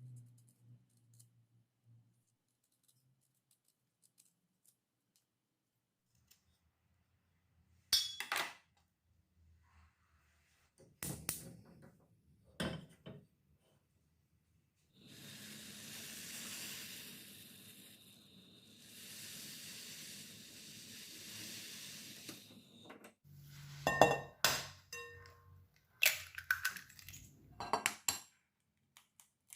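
Kitchen bowls and utensils clinking and knocking while ingredients are prepared. In the middle there is a steady rushing sound in two stretches of several seconds, and near the end a quick run of louder clinks.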